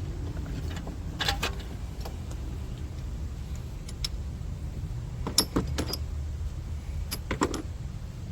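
Sharp clicks and knocks in three short clusters, about a second in, around the middle and near the end, from handling an oxygen sensor's wiring connector and its clip. A steady low rumble runs underneath.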